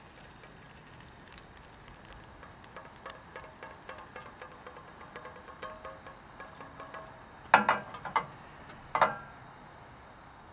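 Fat melting in a small steel pan on a portable butane camp stove, crackling faintly with fine, rapid ticks. Two short, louder knocks come near the end, about a second and a half apart.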